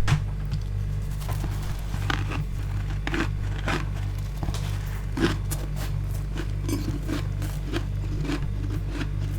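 Close-miked chewing of freezer frost: a run of irregular crunches, a few each second, over a steady low hum.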